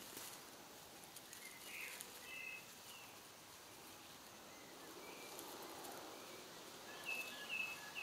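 Faint rustling of a hedgehog moving through dry grass and leaves, with short high bird chirps in small groups, loudest near the end.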